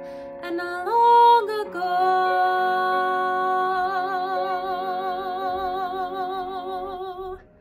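A woman sings solo. A short rising phrase about a second in leads into one long held note with steady vibrato, over sustained accompaniment chords. The note and the chords stop together near the end.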